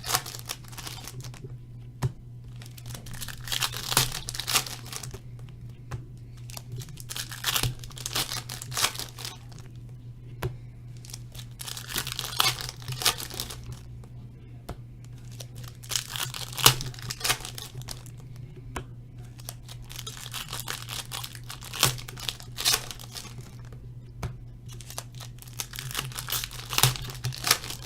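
Foil trading-card pack wrappers being torn open and crinkled, in repeated bursts every few seconds, over a steady low hum.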